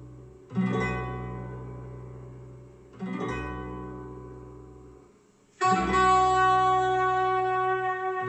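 Plucked-string music played through a YL Acoustic five-way horn loudspeaker system. A note rings and dies away about half a second in, another about three seconds in, then a fuller, held sound begins about five and a half seconds in, with a deep low part under each.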